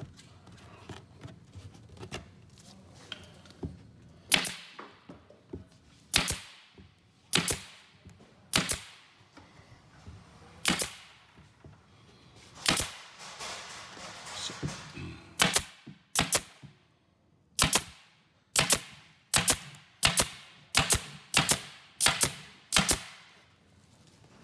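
Pneumatic wide-crown stapler firing staples to stitch the cabinet's plywood back to its frame: about twenty sharp shots, spaced a second or two apart at first, then coming about twice a second in the second half.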